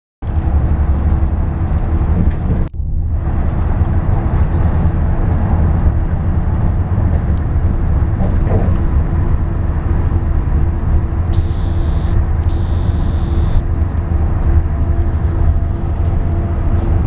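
Moving bus heard from inside the cabin: a steady deep engine and road rumble with a faint constant hum, briefly cutting out just before three seconds in.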